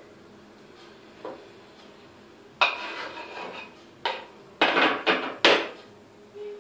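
A table knife scraping chopped feta off a wooden cutting board into a salad bowl, with knocks of the knife and board against the bowl's rim. A faint knife tap comes about a second in, then from about halfway a scrape lasting about a second, followed by several short, sharp scrapes and knocks.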